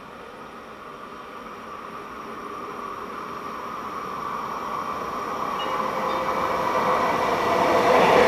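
Diesel locomotive hauling a construction train approaching on the rails, its engine and running noise growing steadily louder as it nears.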